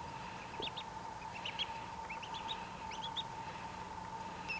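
Newly hatched duckling peeping: a string of short, high chirps that slide upward, coming in small clusters, over a faint steady hum.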